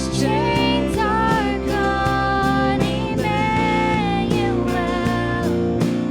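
Worship band music: guitar and sustained chords under a steady beat, with a melody of held, gliding notes.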